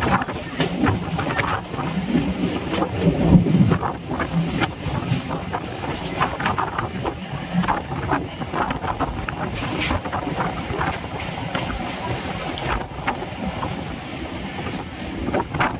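Electric suburban EMU train running on the rails, heard from its open doorway: a steady rumble with irregular clicks and rattles throughout.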